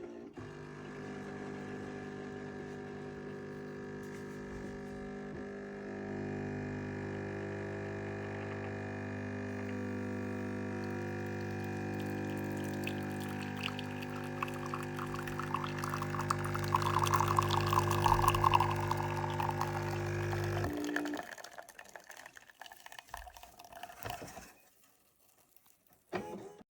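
Siemens EQ.9 S700 fully automatic coffee machine brewing: a steady machine hum while coffee pours into the cup, ending about 21 seconds in.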